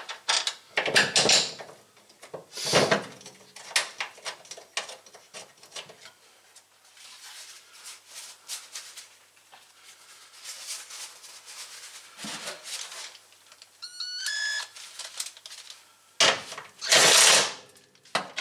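Shifter cables being worked into place through a car's firewall: an irregular run of clunks, clicks and scraping of metal and plastic parts. There is a brief squeak about fourteen seconds in, and two loud rasping scrapes near the end.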